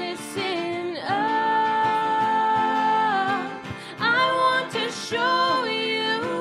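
A song: a singer holding long, gliding notes over guitar accompaniment.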